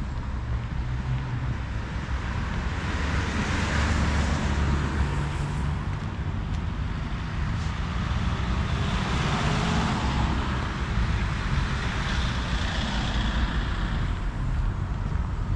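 Road traffic on a busy road: several cars go by one after another, each rising and fading, over a steady low rumble.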